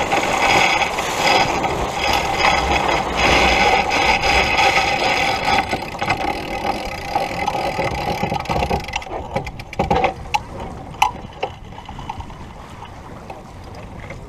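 Sailboat winch ratcheting in rapid clicks over wind and water noise on deck. About nine seconds in, it thins to a few separate sharp clicks.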